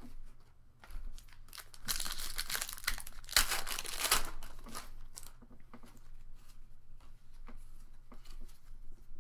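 A foil Pokémon booster-pack wrapper being torn open and crinkled, loudest for about two seconds starting two seconds in, with light rustles and small clicks of handling before and after.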